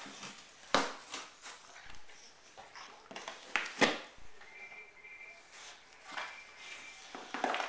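Cardboard box being torn and crumpled by a boxer puppy's mouth: a series of sudden rips and crinkles. The loudest tears come about a second in and just before the middle.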